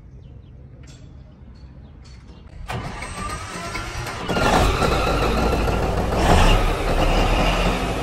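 Komatsu D155A bulldozer's diesel engine being started: the starter cranks a little under three seconds in, and about a second and a half later the engine catches and runs loudly.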